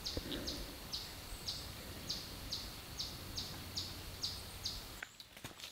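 A bird calls over and over with a short, high, falling chirp, about two a second, over a low steady outdoor background.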